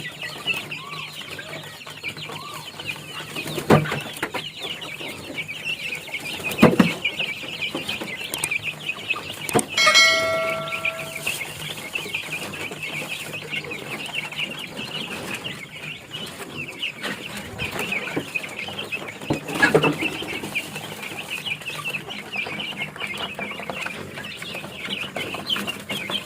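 A crowd of young chicks peeping and chirping continuously. A couple of sharp knocks come in the first seven seconds, and about ten seconds in a short, steady squeal rises above the chirping.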